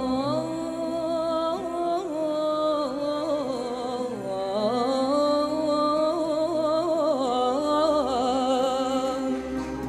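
A man's voice singing into a microphone a long, ornamented melismatic line in Moroccan Andalusian style, the pitch sliding and wavering on held syllables. An ensemble of violin, ouds and accordion accompanies, holding steady notes beneath the voice in the second half.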